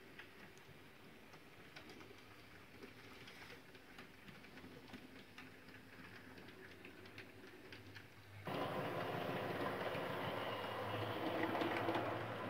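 TT-scale model trains running: a faint motor hum with light clicking of wheels over the track. About eight and a half seconds in, this changes suddenly to a louder, steady rushing noise with a low hum.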